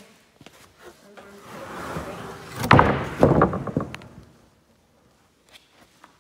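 Wooden boards scraping and rattling against each other, building about a second in, loudest with a quick rattle around three seconds in, then dying away, leaving a few faint clicks.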